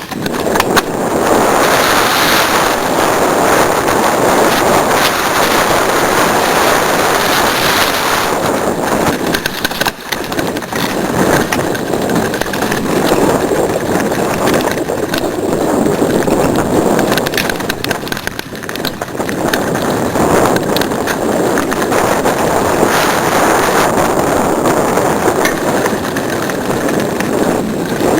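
Mountain bike riding a dirt trail: steady rushing noise of wind on the microphone and tyres on the ground, with many small knocks and rattles from bumps. It starts about half a second in.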